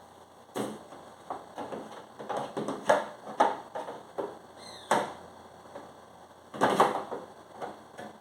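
Irregular knocks and clatters of hard refrigerator parts such as drawers and shelves being handled and set down, in several quick clusters with pauses between.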